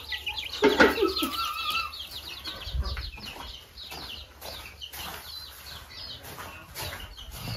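Young chickens peeping, a rapid run of short high chirps that grows fainter after the first couple of seconds.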